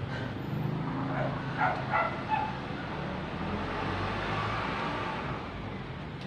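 Steady low rumble of outdoor traffic, with a few short dog barks about one and a half to two and a half seconds in.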